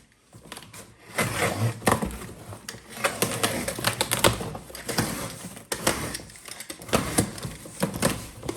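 Cardboard shipping box being opened and handled by hand: a busy run of irregular sharp knocks, scrapes and rustles.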